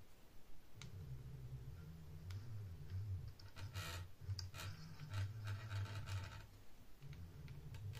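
Wooden 3D-printer X-carriage pushed back and forth by hand along a salvaged typewriter's sheet-metal rail: a faint low rumble in several separate strokes, with scattered light clicks.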